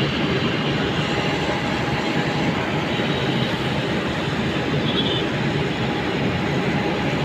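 Steady drone of track-laying machinery running, an engine-driven hydraulic rail machine working without pause.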